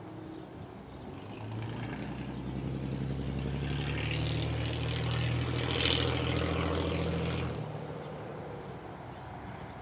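A large engine drone with a steady low hum, swelling over several seconds and then cutting off abruptly near the end.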